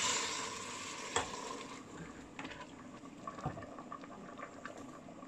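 Stock poured from a glass jug into a hot stainless-steel pot of softened onions and leeks, hissing at first and dying down within the first second or two. A wooden spoon then stirs it, with one sharp knock about a second in and small clicks after.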